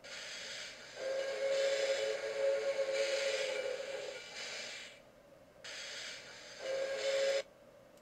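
Steam train whistle sound effect with hissing steam: hiss, then a long steady whistle blast of about three seconds that fades out, a short burst of hiss, and a brief second blast that cuts off abruptly near the end.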